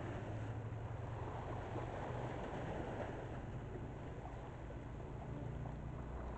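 Distant lake freighter's engines making a steady low drone across the water over a constant background hiss.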